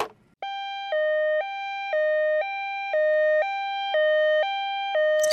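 Electronic two-tone ambulance siren alternating steadily between a higher and a lower note, about one high-low cycle a second.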